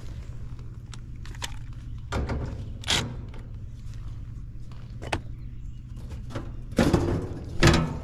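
Cordless Milwaukee M12 Fuel driver running in two short bursts, about two seconds in and again near the end, backing screws out of a condenser's sheet-metal service panel, with clunks of the metal panel being handled. A low steady hum lies underneath.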